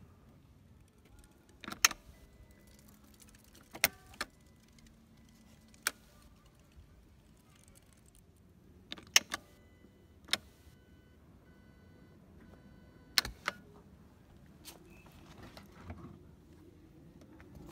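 Sharp plastic clicks and knocks from the Yamaha X-MAX 300 scooter's storage compartment lids and latches being handled, opened and shut. There are about nine in all, several in quick pairs, with quiet between them.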